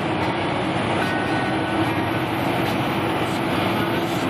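Semi truck driving at highway speed, heard inside the cab: a steady drone of engine and road noise with a constant hum running through it.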